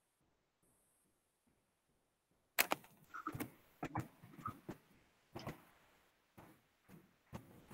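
Computer keyboard typing: a quick, irregular run of key clicks starting about two and a half seconds in.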